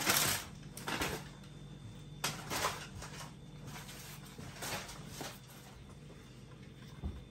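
A bread knife cutting through a crusty loaf, the crust crackling loudest at the start. Scattered soft scrapes and rustles follow as the breads are handled.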